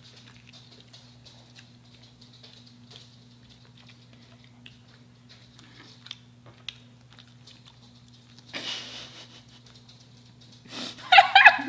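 Quiet eating of fried chicken: faint chewing clicks and a brief rustle of food being handled over a steady low hum. Near the end a loud, high, wavering cry breaks in.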